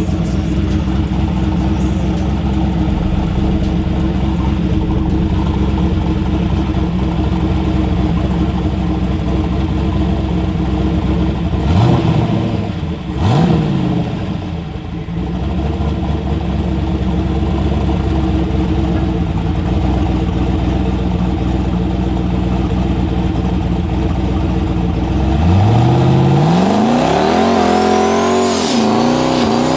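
Loud car engine idling steadily, with two quick throttle blips about twelve seconds in. Near the end it revs up hard and keeps rising and wavering in pitch as the car pulls away under power.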